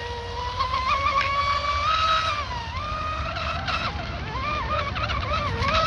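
RC speedboat's 4074 2000kV brushless motor whining hard at speed. Its pitch wavers and dips as the boat runs laps, then climbs sharply to a louder, higher whine near the end.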